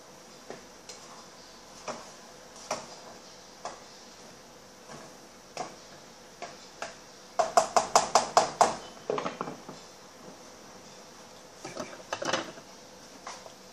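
Kitchen clatter of dishes and utensils: scattered sharp knocks and clinks, with a quick run of about eight taps, some six a second, about halfway through and a few more clinks near the end.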